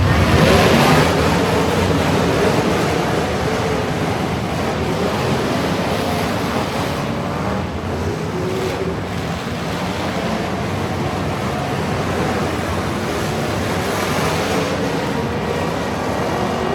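Truck engine running under load amid a loud, steady rushing noise, loudest in the first second.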